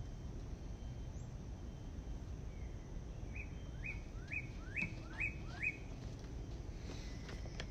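A bird calling: a run of six short notes, each rising sharply in pitch, about two a second, over a steady low rumble.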